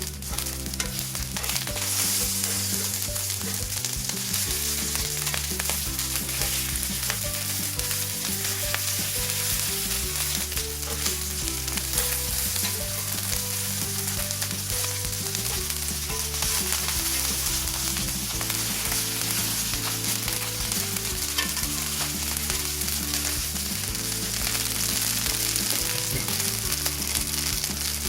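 Chicken wings sizzling steadily as they pan-fry in oil, with the sound of them being stirred and turned in the pan.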